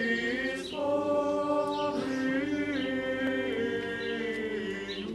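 Unaccompanied male choir of Greek Catholic seminarians chanting, holding long notes that change every second or two.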